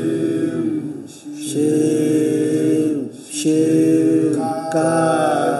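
A man chanting unaccompanied in long held notes: three drawn-out phrases, the last pitched higher, in the manner of a praise salutation to a traditional ruler.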